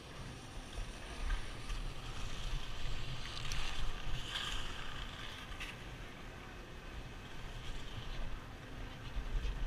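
Wind buffeting the helmet camera's microphone while skis slide and scrape over packed snow, the scraping hiss strongest about three to five seconds in.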